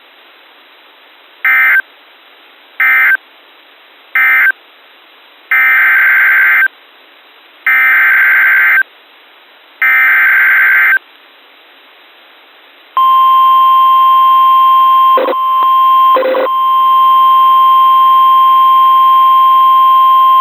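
Emergency Alert System weather radio signalling. First come three short end-of-message data bursts, then three longer buzzing data-header bursts announcing the next warning. About thirteen seconds in, a loud steady alert tone near 1 kHz starts and holds, interrupted briefly twice.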